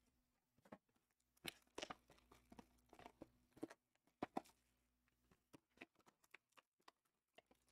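Faint, irregular crinkling and tearing of foil trading-card pack wrappers being handled and opened, a scattering of short crackles over a low steady hum.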